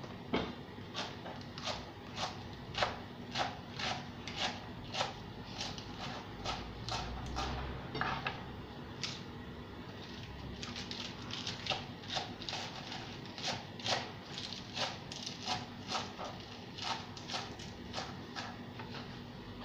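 Kitchen knife slicing through a head of cabbage onto a plastic cutting board: a steady series of crisp chops, roughly two a second, with a short pause about halfway.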